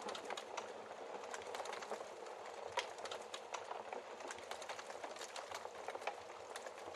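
Wood fire crackling steadily over a soft hiss, with many small irregular pops and a slightly sharper pop about three seconds in.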